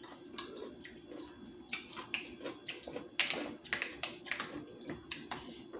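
Eating sounds at the table: scattered small clicks, smacks and crackles of chewing and of fingers picking apart a seafood boil, over a faint steady hum.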